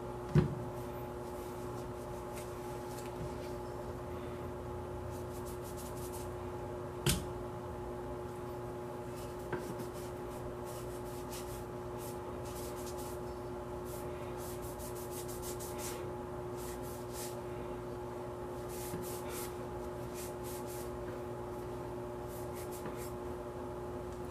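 Cloth rag rubbing and wiping over AR-15 pistol parts in short, light scrubbing strokes, with a few knocks of the parts being handled: the loudest about half a second in, another about seven seconds in. A steady hum runs underneath.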